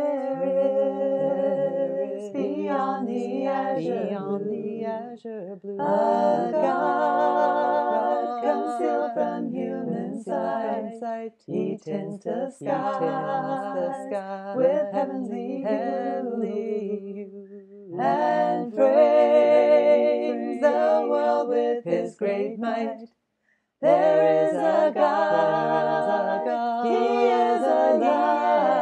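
A cappella hymn sung in four-part harmony by one woman's multitracked voice, in held phrases with short breaks between them and a brief full stop late on.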